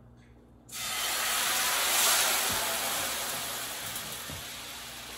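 Liquid hitting a hot pan and sizzling: a sudden hiss that starts a little under a second in, is loudest about a second later, then slowly dies down, with a few soft knocks of utensil on pan.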